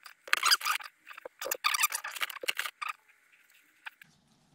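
Rustling and clattering of small gun-cleaning tools being handled by gloved hands while sorting through bore brushes, in irregular bursts for about three seconds, then a single click near the end.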